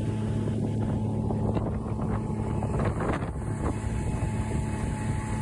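Tohatsu outboard motor running at speed, driving a bass boat across open water with a steady low drone. Wind buffets the microphone throughout.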